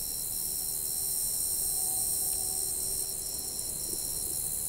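Night insect chorus: crickets chirping in repeated trills of about half a second each, over a steady high hiss of insects. The trills stop a little before the end.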